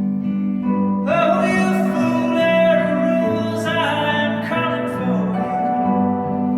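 Live band playing a slow folk-rock song: guitar and bass over sustained chords, with a bright, sliding lead melody coming in about a second in.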